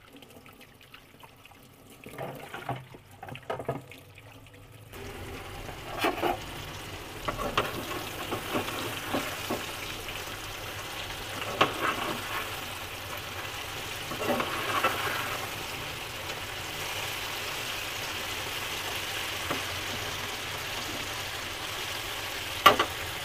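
Chicken fingers deep-frying in hot oil in a metal kadai: a steady sizzle that grows louder about five seconds in. A few sharp knocks come from a metal ladle against the pan as the pieces are turned.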